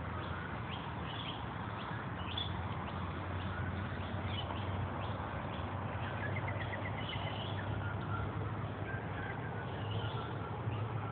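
Small birds chirping and calling, with a short fast trill a little past the middle, over a steady low rumble.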